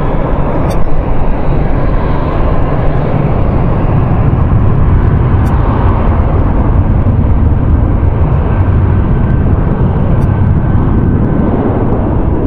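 Airbus A319 jet engines at takeoff power as the airliner rolls down the runway: a loud, steady, deep rumbling roar, with a faint high whine held from about halfway.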